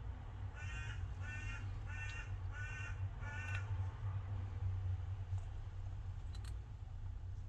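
A bird calling five times in a row, short calls about two-thirds of a second apart, over a steady low hum.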